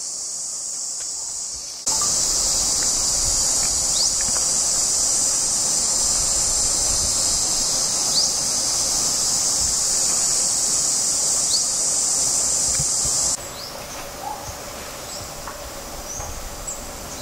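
A loud, steady, high-pitched insect chorus with a few short rising bird chirps over it. The chorus jumps louder about two seconds in and drops off suddenly near the end, leaving a quieter background with scattered bird chirps.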